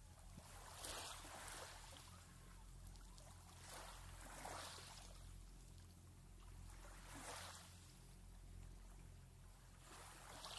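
Small waves lapping faintly on a pebble lakeshore, a soft wash coming in about every three seconds.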